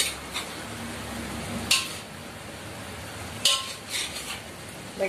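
Metal spoon stirring pork pieces in a steel wok, clinking and scraping against the pan a handful of times, two of the knocks ringing briefly, over a faint sizzle of the meat frying.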